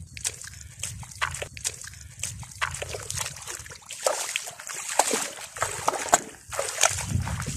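Footsteps squelching through wet mud and splashing in shallow muddy water: a run of irregular wet sucks and splashes over a low rumble.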